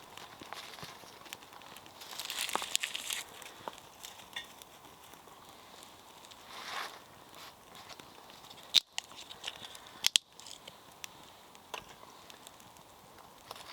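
Fire steel being scraped to throw sparks, with tinder crinkling and crackling under the hands while a fire is being lit; the strongest scrape comes about two seconds in, and two sharp clicks follow later.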